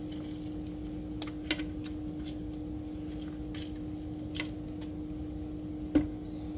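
Scattered light clicks and taps of food and kitchenware being handled, the sharpest about six seconds in, over a steady electrical hum.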